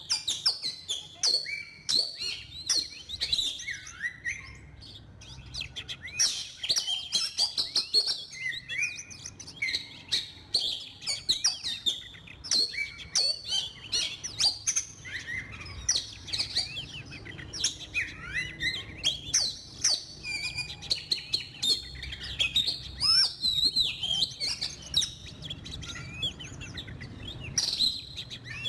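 Oriental magpie-robin song used as a bird-trapping decoy call: a continuous, rapid run of varied short whistles, chirps and sharp clicks with no long pauses.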